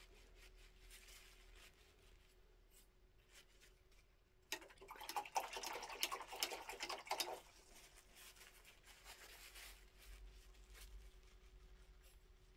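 A paintbrush being wiped clean: about four seconds in, a burst of quick rubbing and rustling with small clicks lasts about three seconds. Otherwise only a faint steady hum.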